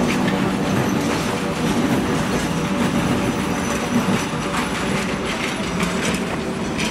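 Container freight train wagons rolling past on the rails: a steady rumble with repeated clicks of the wheels over the rail joints.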